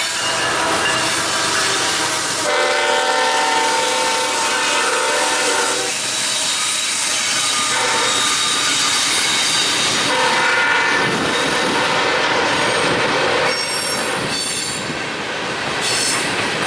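Freight train passing close by, its cars and wheels running over the rails, with a multi-tone horn sounding for about three seconds a few seconds in. From about ten seconds in, high-pitched wheel squeals come and go.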